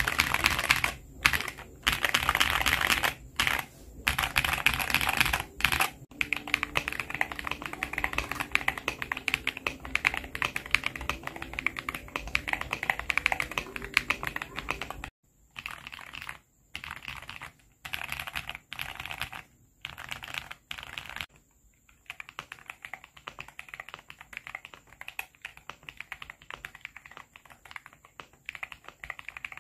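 Fast typing on a Xinmeng A66 aluminium mechanical keyboard fitted with Akko V3 Creamy Blue Pro switches: dense bursts of key clacks with short pauses. About halfway through, the sound changes to the same keyboard with Akko V3 Lavender Purple Pro switches, typed more quietly in shorter bursts.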